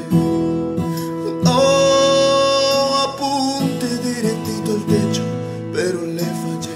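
Ballad music with acoustic guitar; a long held note rings out from about a second and a half in.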